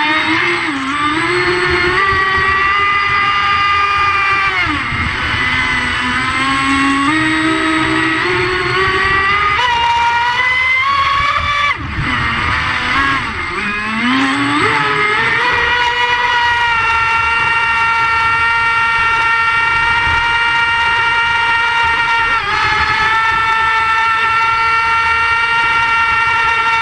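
1.08 m Osprey model boat running flat out, its motor giving a high whine that rises and falls with the throttle and then holds steady, with a brief dip about two thirds of the way through, over the rush and slap of water against the hull and spray.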